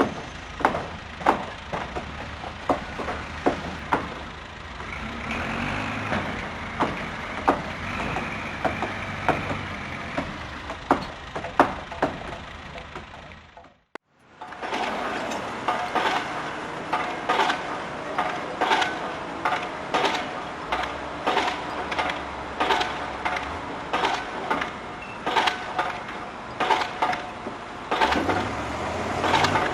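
Construction site work: repeated sharp knocks and bangs at an uneven pace over a low machinery rumble. About halfway the sound drops out for a moment and a second, busier stretch of knocks follows, some with a metallic ring.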